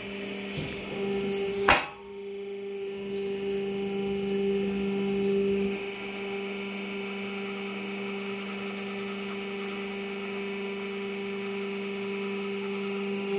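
Hydraulic press pump motor running with a steady electric hum while the ram presses down. There is one sharp crack about two seconds in. The soft squelch of crushed fruit is barely heard over the hum.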